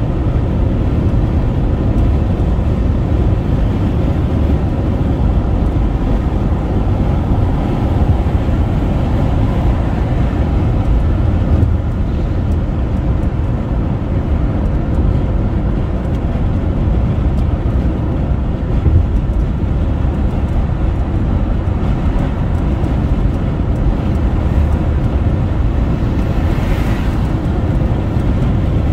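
Car driving on a highway: steady engine and road noise, strongest in the low range.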